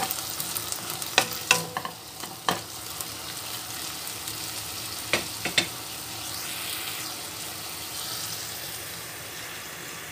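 Pork belly cubes sizzling as they sauté in a coated frying pan, rendering their fat. A wooden spatula stirs them and knocks against the pan, three times in the first few seconds and twice more about halfway.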